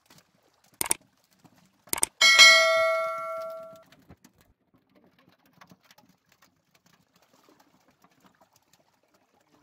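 Two short knocks, then about two seconds in a loud metallic clang from an aluminium basin as fish are dropped into it, ringing for about a second and a half before dying away. After that only faint scattered ticks remain.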